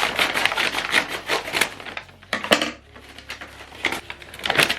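Packaging being handled and opened: a quick run of clicks and rustles, a sharp snap about two and a half seconds in, then scattered clicks with another flurry near the end.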